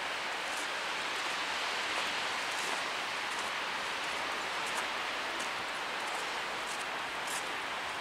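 Steady outdoor city ambience, an even hiss of distant traffic and air, with faint soft steps on snow about once a second.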